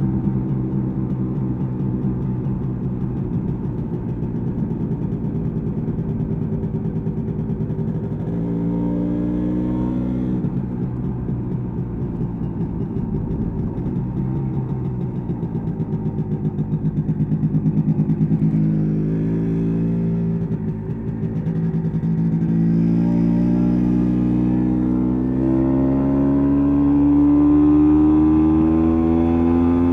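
1986 MZ ETZ 250's single-cylinder two-stroke engine under way, pulling up through the gears: the revs climb, drop at gear changes about ten seconds and twenty seconds in, then climb steadily for a long stretch near the end.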